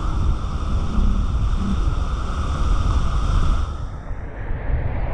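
Wind rumbling on the microphone of a car-mounted camera as the car drives, over a steady hiss of tyres on wet pavement; the higher hiss falls away near the end.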